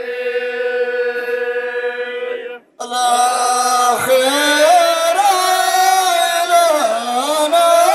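Amazigh tandamt chant: a man's voice holds one long sung note that breaks off about two and a half seconds in. After a short gap, a group of men's voices takes up a chanted melody in reply, in ahwach call-and-response.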